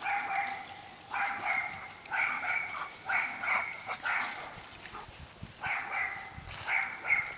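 A dog barking in short, high-pitched yaps, about seven of them at roughly one a second, with a break just past the middle.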